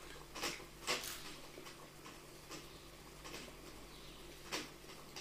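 A few faint, sharp clicks scattered irregularly over a low steady hum.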